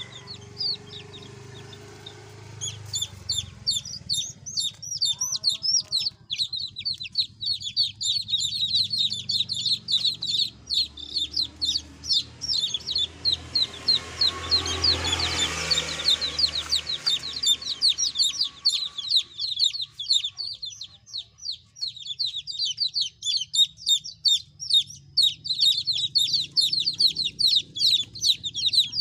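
Chicken chicks peeping continuously, a rapid stream of short, high, falling calls, several a second. About halfway through, a brief swell of noise like rustling rises over the peeping.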